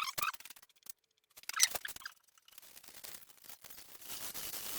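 Hand sanding of a rusted steel planer post with 220-grit sandpaper: an even scratchy rubbing that sets in about halfway and grows a little louder, after a few handling clicks and knocks.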